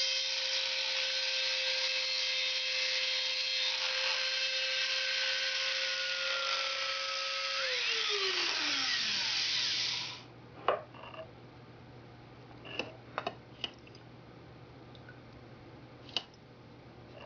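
Dremel rotary tool in a drill-press stand grinding a hole in wet glass with a 1/8-inch diamond bit. It gives a loud steady whine, pitched up by the four-times speed-up. The uploader calls this Dremel noisy and in need of service. About eight seconds in the motor spins down, its pitch falling until it stops, leaving a low hum and a few light taps.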